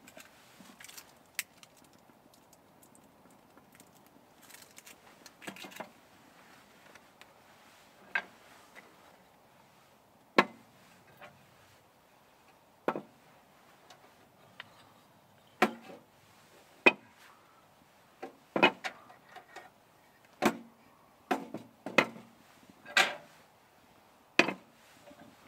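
Split wooden kindling knocking and clattering against a Pomoly metal tent stove and against itself as it is fed into the firebox. The sharp wooden knocks come singly and far apart at first, then more often in the second half.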